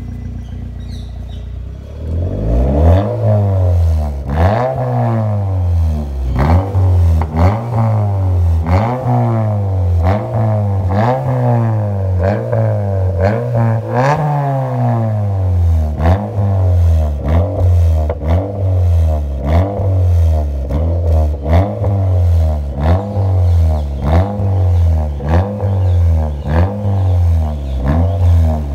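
Honda City's engine through a custom-made exhaust, idling briefly and then revved again and again, each rev rising and falling in pitch. The blips come quicker in the second half, and sharp pops and crackles sound as the throttle closes, which the owner says his exhaust setup makes on its own, without any ECU pops-and-crackles software.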